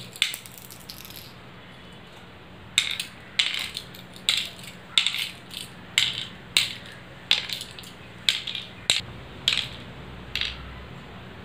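Small shell counters dropped one at a time into the hollow pits of a wooden pallanguli board as a player sows them around it: a row of sharp clicks about every half second.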